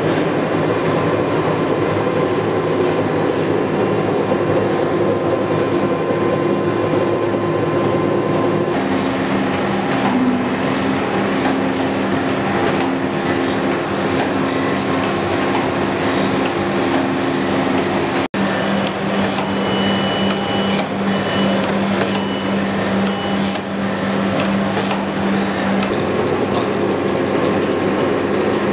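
Machine tools running steadily in a machine shop: a motor hum with mechanical rattle and scattered clicks. The sound cuts out for an instant about eighteen seconds in, then carries on.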